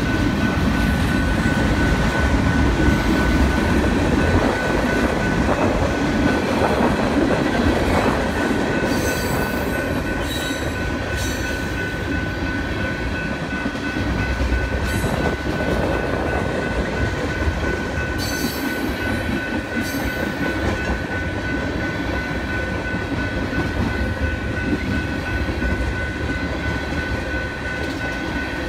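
Freight train of tank cars and covered hoppers rolling past at a grade crossing: a steady rumble and clatter of steel wheels on the rails. Brief high squeals from the wheels come several times near the middle.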